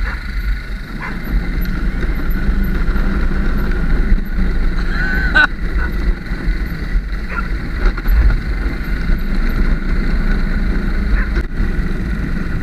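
ATV engine running with a steady low rumble, mixed with wind noise on the microphone.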